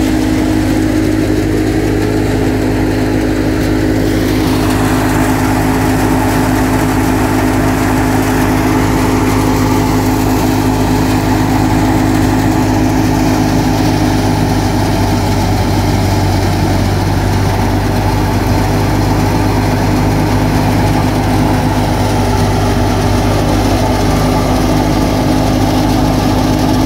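Massey Ferguson 375 tractor's diesel engine running steadily under load, driving a wheat thresher whose drum and fans add a steady whirring rush. The rushing noise grows brighter about four seconds in.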